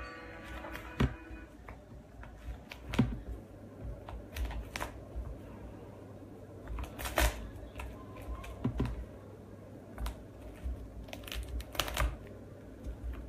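Scattered light clicks, taps and rustles of hands handling and arranging small pieces on a plate on a counter, with a few sharper knocks among them.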